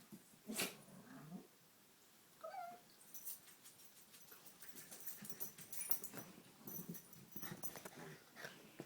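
Dogs play-fighting: low growling and heavy breathing, a short yelp about two and a half seconds in, then a run of quick clicking and rattling as they scuffle.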